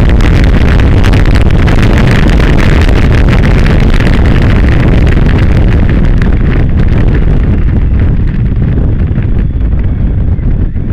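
Heavy wind noise buffeting the microphone over the running V-twin engine of a Suzuki V-Strom motorcycle at speed in third gear. The noise eases off over the last few seconds as the bike slows into a bend.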